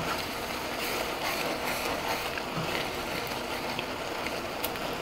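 Rohu fish roe sizzling steadily as it fries in a pan over raised heat, cooked down until dry and browned, with a wooden spatula stirring and scraping through it.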